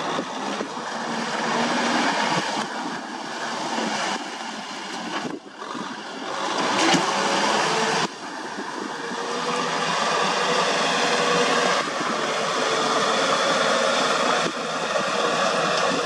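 Kubota M6040SU tractor's diesel engine running steadily under load while its rear rotary tiller works wet paddy mud, a continuous mechanical din with a few abrupt breaks.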